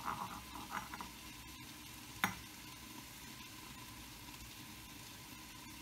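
Grated coconut being scraped by hand out of a small glass bowl, soft rustling in the first second, then a single sharp tap of the bowl about two seconds in, followed by a faint steady hiss.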